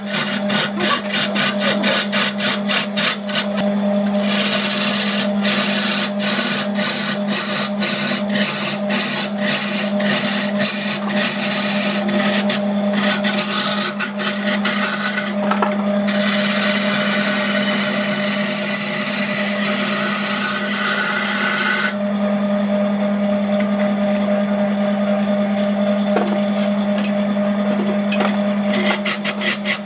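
Wood lathe running with a steady motor hum while a long turning tool cuts into a large spinning log. The cut comes as a fast, regular rapping rasp for much of the time and turns into a continuous hiss of shavings for several seconds past the middle.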